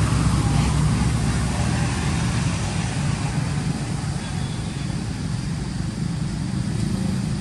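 Steady low rumble of outdoor background noise, such as wind on the microphone or distant traffic, with no clear animal calls standing out.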